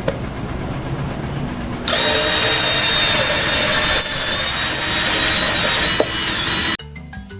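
Harsh, loud mechanical noise with several steady high whining tones, jumping up about two seconds in and cutting off suddenly near the end, after a quieter rumbling start.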